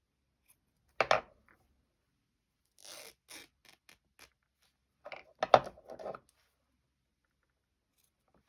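Fabric and sewing things being handled on a work surface close by: a few sharp taps and rustles, the loudest cluster about five and a half seconds in.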